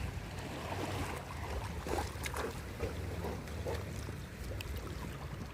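Steady low rumble of wind buffeting the microphone at the beach, with surf behind it and a few faint short sounds on top.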